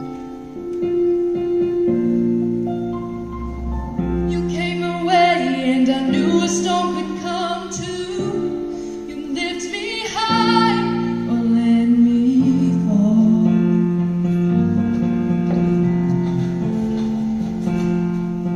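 Choir performance music: a female voice singing with vibrato over an instrumental accompaniment of held chords, the singing most prominent in the middle of the stretch.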